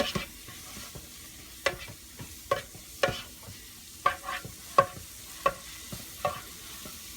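Ground beef with taco seasoning sizzling in the Ninja 4-in-1 cooker's pan while a utensil stirs it, knocking against the pan about a dozen times at irregular intervals with short ringing clinks.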